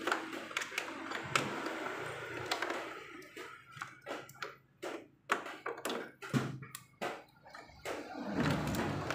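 A scattered series of sharp clicks, taps and knocks at uneven intervals, a few louder than the rest, with quiet gaps between.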